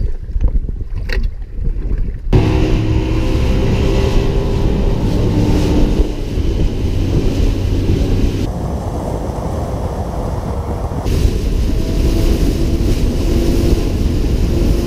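Bass boat's outboard motor running at speed, with heavy wind noise on the microphone and water rushing along the hull. The noise starts suddenly about two seconds in, after a few faint clicks.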